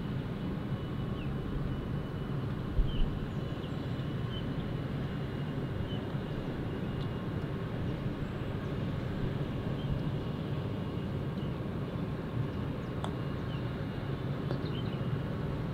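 Steady low rumble of distant traffic, with two short thumps about three seconds in and a few faint high chirps.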